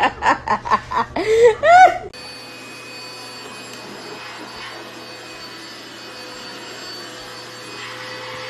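A voice for about the first two seconds, then a cordless handheld vacuum cleaner running steadily, its motor giving an even rush with a thin steady whine.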